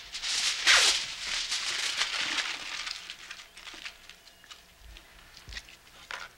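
Aluminium foil crinkling and crackling as it is handled and crumpled into balls. It is dense and loud for the first three seconds, then thins to scattered light crackles.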